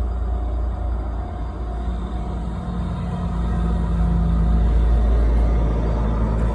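Freight train passing on the track: a loud, steady low rumble that grows louder about four seconds in.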